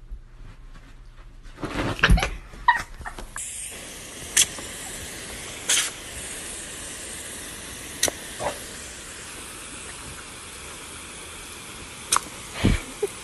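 Garden hose spray nozzle hissing steadily from about three seconds in, with a few short sharp clicks over the spray and a burst of louder irregular sounds just before it starts.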